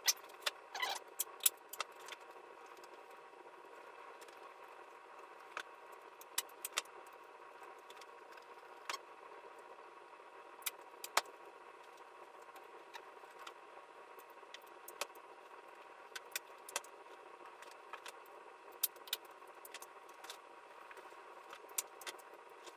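Duct tape being pulled from the roll and pressed along the edges of cardboard: scattered small clicks and crackles, a quick cluster in the first two seconds and then sparser, over a faint steady hiss.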